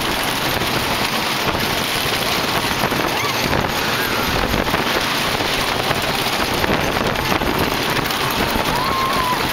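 Lightning Racer wooden roller coaster train running along its track with wind rushing over the microphone: a steady, loud rumbling rush. Faint voices rise and fall near the end.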